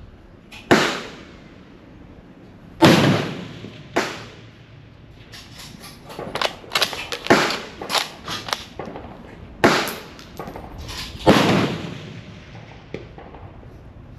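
Five loud rifle shots, each with a short ringing echo. One of them is a WW2 Mauser bolt-action rifle. In the middle stretch comes a run of metallic clicks and clacks as the Mauser's bolt is worked and the spent brass case drops onto the bench.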